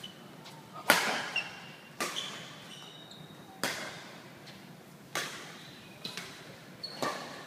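Badminton rally: about six sharp racket-on-shuttlecock strikes a second or so apart, each echoing briefly in a large hall. Short high squeaks between the strikes come from shoes on the court.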